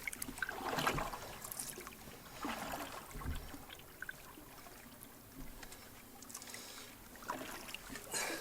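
Canoe paddle strokes in the water: a few separate swishes and drips of the blade, several seconds apart, over a faint background of moving river water.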